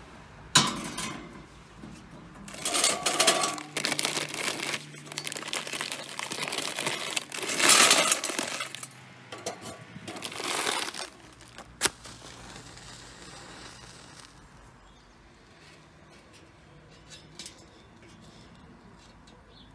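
Charcoal briquettes clattering and rattling into a metal chimney starter in several pours, after a sharp metal knock as the chimney is set down on the grill grate. A single sharp clink follows, then only faint ticks.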